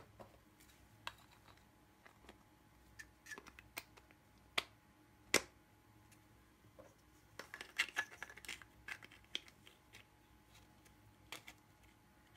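Faint clicks and taps of 3D-printed plastic gearbox parts being handled and fitted together by hand, as the yellow input housing is set onto the gearbox. Two sharper single clicks come a little before the middle, then a quick flurry of small clicks.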